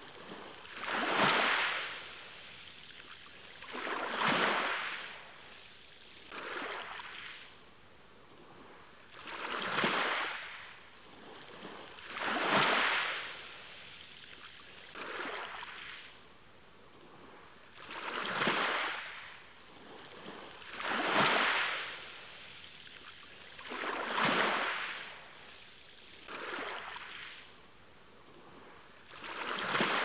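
Small ocean waves breaking and washing up the shore, each one a surge of foamy hiss that swells and falls away, about every three seconds.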